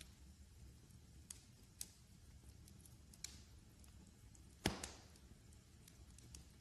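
Wood fire crackling: scattered sharp pops over a faint low rumble, with one louder pop a little past halfway that trails off in a brief hiss.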